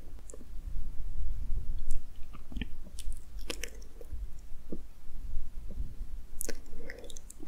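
Close-miked ASMR trigger sounds: scattered soft clicks and crackles over a low rumble, with no whispering.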